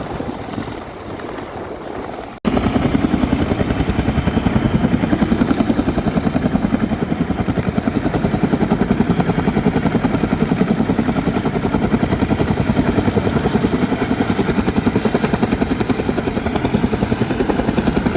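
Helicopter close by, its rotor blades beating in a fast, steady pulse. After an abrupt cut about two and a half seconds in, it is much louder.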